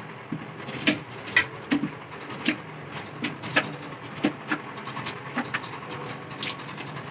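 Kitchen knife cutting and peeling a small onion held in the hand: irregular crisp clicks and snaps, roughly two a second.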